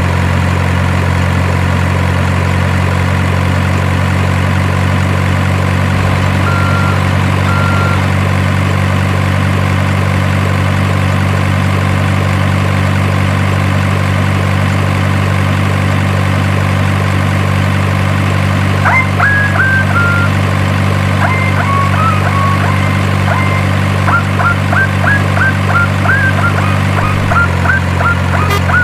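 Steady, unchanging engine drone of RC heavy equipment, idling without revving; its tone shifts slightly near the end. Short high chirping tones come in over it in the second half.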